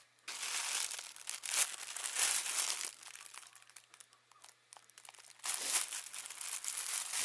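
Plastic packaging crinkling and rustling as it is handled and pulled open, in two bursts with a quieter pause in the middle.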